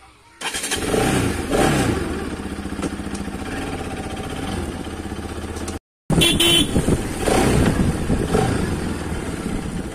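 Bajaj Pulsar RS200's single-cylinder engine running while the motorcycle is ridden, starting suddenly about half a second in, with the revs rising twice in the first couple of seconds. The sound drops out for a moment about six seconds in, then the engine carries on.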